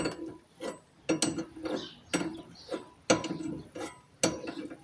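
Hand ratchet wrench being worked on the steering assembly, giving sharp ratcheting clicks about two a second.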